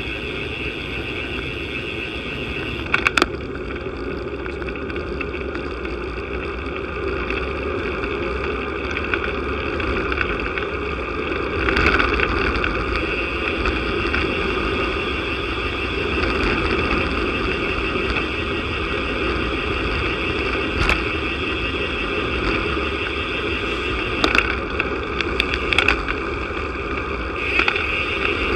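Wind rushing over a bike-mounted camera and tyres running on asphalt during a road-bike descent, a steady rushing noise broken a few times by sharp knocks from bumps in the road.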